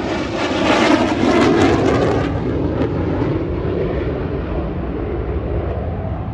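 A US Air Force Thunderbirds F-16 fighter jet passing low overhead. Its jet noise is loudest and crackling about one to two seconds in, then settles into a rumble that slowly fades as it moves away.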